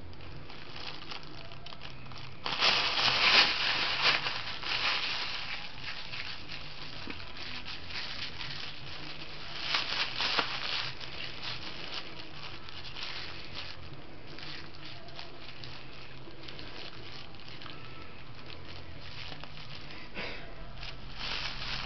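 Crinkling and rustling of a bag of valerian root as a kitten grips and bites it, in bursts: a loud one about two and a half seconds in, another around ten seconds, and a third near the end.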